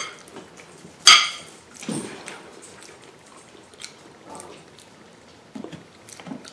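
A dog gives one sharp, high bark about a second in, followed by a weaker, lower sound a second later. A metal spoon clicks lightly on a ceramic plate.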